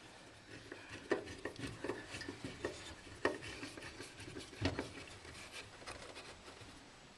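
Hand work on a furnace: irregular scraping and rubbing with scattered small clicks and taps, and a few sharper knocks, as a Phillips screwdriver works screws into the metal cover.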